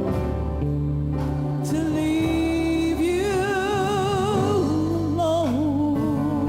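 A gospel-style song: a solo voice holds long notes with vibrato, over bass and instrumental backing.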